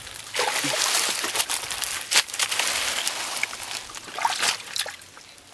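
Hands splashing and sloshing through shallow muddy water while groping for catfish, with many quick sharp splashes; it dies down near the end.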